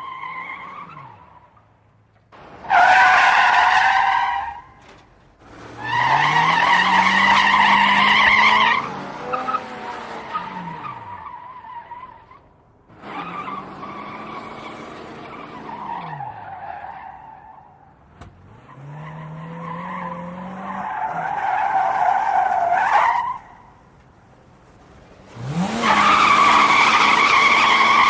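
A car's tyres squealing through a series of skids, about five squeals of two to four seconds each, with the engine revving up and dropping back beneath them.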